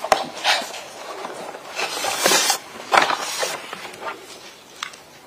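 Papers rustling close to a microphone as a witness leafs through his notes, in several short bursts with a few light clicks.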